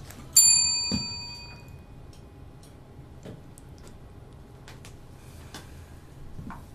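A single bright bell-like chime rings once about half a second in and dies away over a second or so, marking the start of the timed doze. Then only quiet room tone with a few faint clicks.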